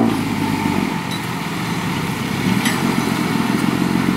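Loaded six-wheel dump truck driving slowly over loose dirt, its engine running steadily.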